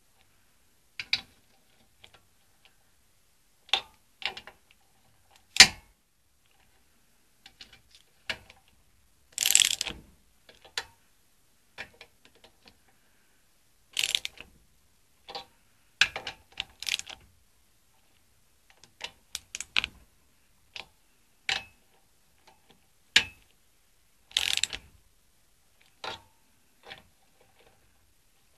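Ratchet torque wrench clicking in short, irregular bursts with pauses between, as the cylinder head nuts of an air-cooled VW engine are tightened in turn on the first torquing pass.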